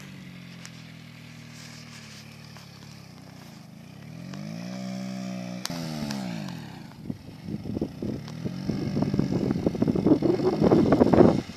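Minsk 125 motorcycle's single-cylinder two-stroke engine running as it rides past, its note falling and rising with the throttle, then growing much louder and rougher over the last few seconds as it comes close.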